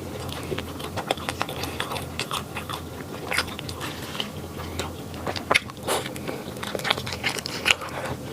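Someone biting into and chewing flaky pastry: irregular crisp crunches and crackles, a few louder bites among softer chewing.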